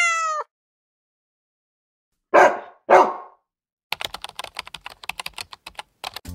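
The tail of a cat's meow, then two dog barks about half a second apart around two and a half seconds in, followed by about two seconds of rapid computer-keyboard typing clicks.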